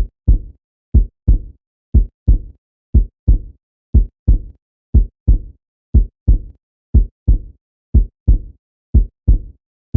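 Heartbeat sound effect: paired low lub-dub thumps, about one pair a second, steady and evenly spaced over silence.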